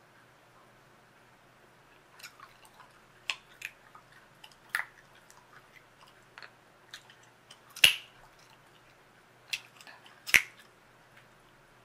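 Chewing gum being chewed with the mouth: an irregular run of wet smacks and clicks, with two louder snaps in the second half.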